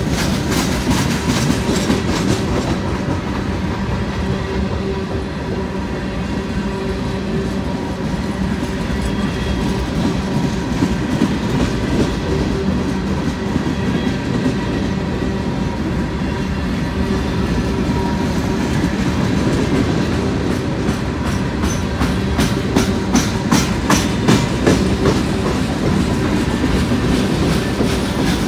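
Long freight train of empty flatcars rolling past close by: the steady noise of steel wheels on rail, with a clickety-clack of wheels over rail joints that grows sharper and quicker about two-thirds of the way through.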